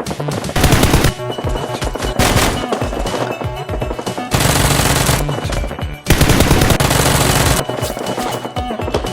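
Bursts of rapid automatic gunfire sound effects over action background music.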